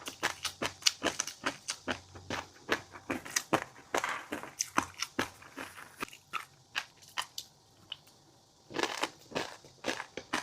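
Close-miked chewing of fish roe and crunchy seafood: rapid, crisp crunches and pops in quick succession, with a short lull about eight seconds in.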